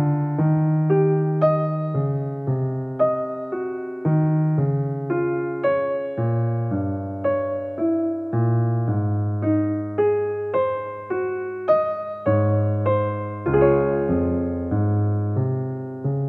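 Background piano music: a slow melody of struck notes over low held bass notes, each note ringing and fading.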